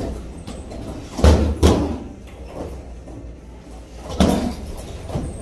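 Kicks landing on a 150 lb hanging heavy bag: two heavy thuds about half a second apart a little over a second in, and another about four seconds in.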